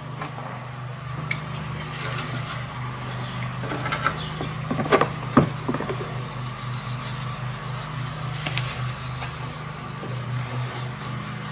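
Scattered light clicks and knocks of a VW transmission mechatronic unit being worked by hand into the transmission housing, with a few sharper knocks about halfway through, over a steady low hum.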